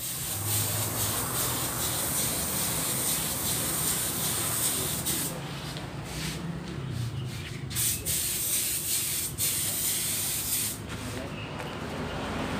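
A steady spraying hiss, broken off briefly several times partway through.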